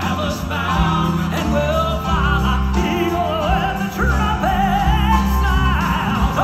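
Live southern gospel music: a male vocal quartet singing into microphones over a band accompaniment with a steady low bass line.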